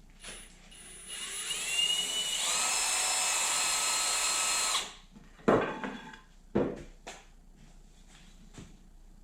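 Power drill spinning up with a rising whine and boring a hole in a wooden bench slat for about three seconds, then stopping. A few short knocks follow.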